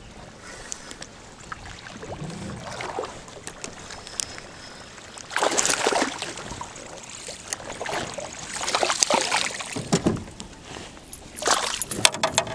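Water splashing in several short bursts, with a low thud and a few sharp clicks near the end.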